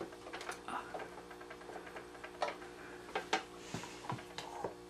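Scattered light clicks and taps, irregularly spaced, from hands setting four layers of fleece under the presser foot of a Janome sewing machine, over a faint steady hum.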